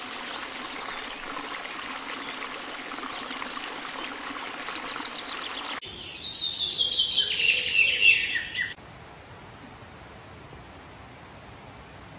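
Small waterfall splashing down rocks into a pool, a steady rush of water. About six seconds in it stops abruptly, and a bird sings loudly for about three seconds, a quick series of notes stepping down in pitch. After that there is only faint forest background with a few thin, high bird notes.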